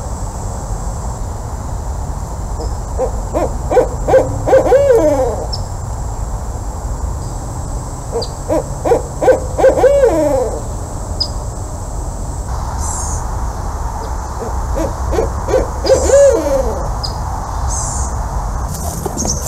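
Barred owl hooting in three bouts, each a quick run of falling hoots, over a steady low rumble.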